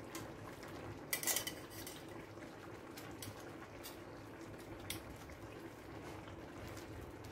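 Metal kitchen tongs clinking against a ceramic plate and a clay pot as pieces of browned pork rib are moved into the sauce. There is a quick cluster of clinks about a second in, then a few single ticks, over a faint steady hum.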